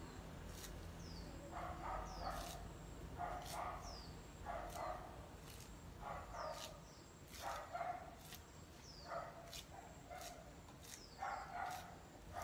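A dog barking repeatedly, a bark or a pair of barks about every second.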